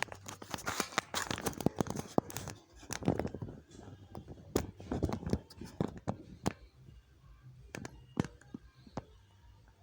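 Hand tools working at stuck parts on a diesel engine: irregular metal clicks, knocks and scrapes, thick for the first few seconds, then sparser and quieter.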